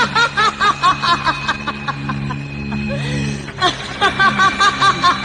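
A woman laughing loudly in quick, rhythmic 'ha-ha-ha' pulses, two bouts with a short break in the middle, over a steady droning background music.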